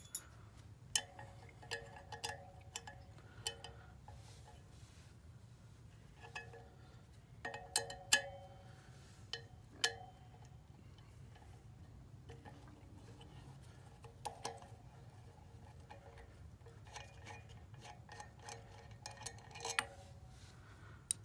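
Irregular metallic clicks and clinks from a small tool-kit wrench working a 10 mm nut on a motorcycle's rear sprocket bolt, in scattered clusters with a short ringing after each clink.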